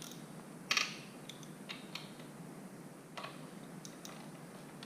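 Scattered metallic clicks and ticks of a wrench working the front fork's axle pinch bolts, tightened back and forth a little at a time; the loudest click comes about three-quarters of a second in.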